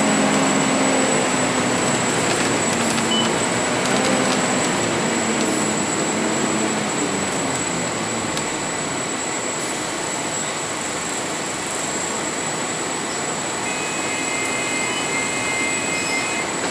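Cabin noise of a Volvo B10BLE CNG bus under way: the engine drone with road and tyre noise, the engine note easing off in the first few seconds. A thin steady high whine runs underneath, and faint high squeals come in near the end.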